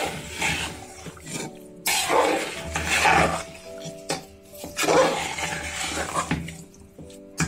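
Metal spoon scraping and turning raw mutton, onions and spices inside a metal pressure cooker in a few long, noisy strokes, loudest about two and five seconds in, over soft instrumental background music.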